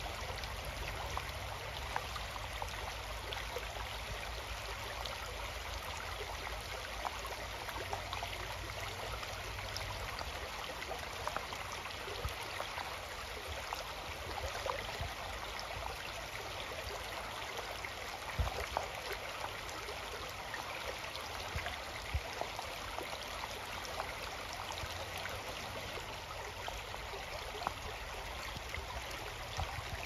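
Shallow stream running fast over rocks, a steady rush of water with many small splashes and gurgles through it.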